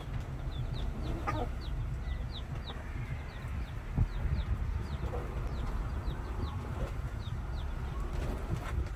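Baby chicks peeping, a steady stream of short, high chirps that slide downward, with a few lower hen clucks and a steady low rumble underneath.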